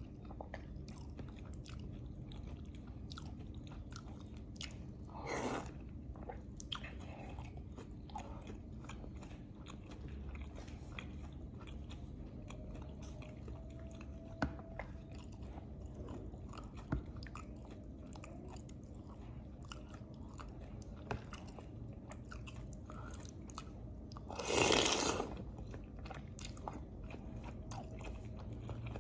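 Close-miked chewing and biting of lontong with green chilies: many small wet mouth clicks, with two louder, longer mouth sounds about five seconds in and near the end.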